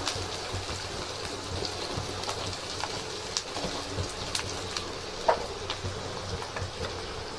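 Sliced onions sizzling in hot oil in a steel kadhai, with scattered pops and a wooden spatula scraping and stirring them; a sharp click a little past five seconds in.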